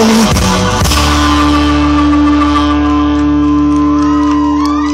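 Live rock band ending a song: the drums stop about a second in and the last chord is held, ringing on from electric guitars and bass, with a few bending notes near the end.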